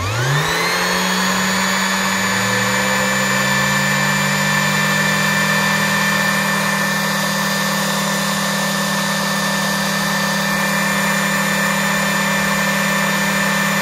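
Ridgid 18-volt cordless orbital sander switched on, its motor spinning up in about half a second and then running at a steady pitch. It runs with no load, the pad spinning in the air as the sander stands on its battery pack.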